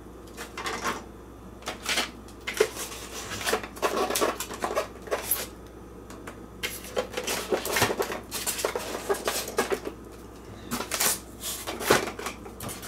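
Hard plastic parts of a vintage 1980s Omega Supreme Transformers toy clicking and clattering as they are handled and turned over, in irregular flurries with a few short pauses.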